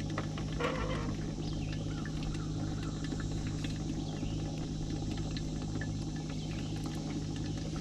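A steady low hum, with faint chirps like distant birds over it.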